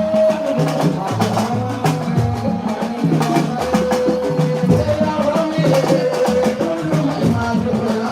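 Music with a steady percussion rhythm and a stepping bass line, with a voice holding long notes over it.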